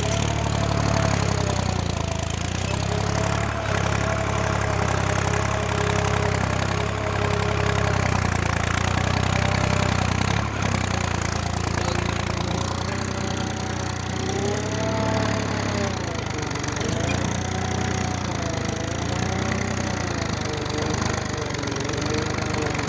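Tractor engine running steadily while pulling a plough through a field. From about halfway through, a wavering higher tone runs over it.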